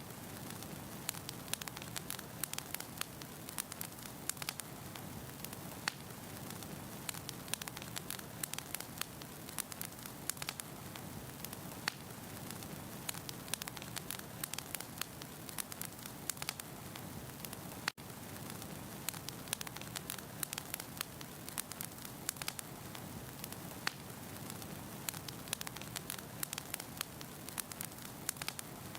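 Wood fire burning in a fireplace: a steady soft hiss with frequent sharp crackles and pops of burning logs. The sound cuts out for an instant about two-thirds of the way through.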